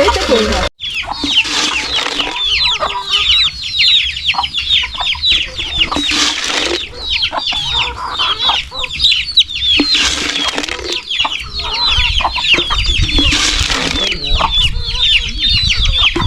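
Chickens calling: a dense, continuous run of short, high cheeps that each fall in pitch, with a few brief rustling bursts.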